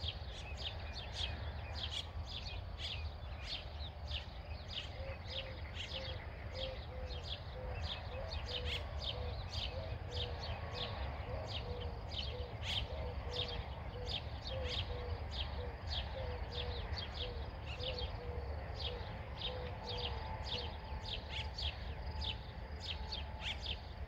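Wild birds chirping outdoors: short high chirps, two or three a second, with a lower note repeated about twice a second through the middle stretch. A steady low rumble runs underneath.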